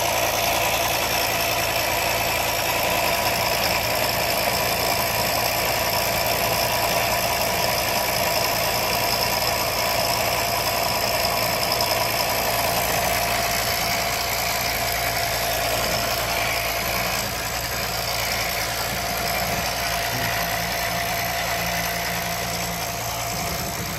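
Automotive smoke leak tester's pump running steadily, pushing smoke into the engine's intake through the air box hose to find a vacuum leak.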